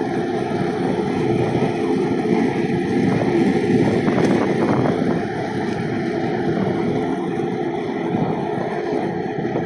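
Steady rushing noise of wheels rolling along an asphalt road, mixed with wind on the microphone.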